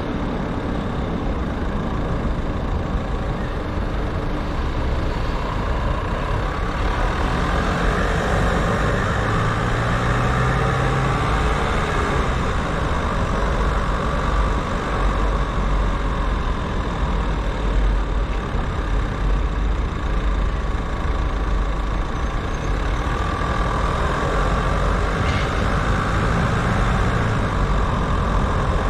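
Car driving slowly through city streets: a steady low rumble of engine and tyres on the road.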